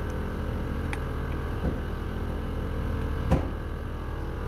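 Steady low background hum with a few light clicks and knocks as a spark plug, held in a length of rubber hose, is worked into its well in the cylinder head cover. The loudest knock comes a little over three seconds in.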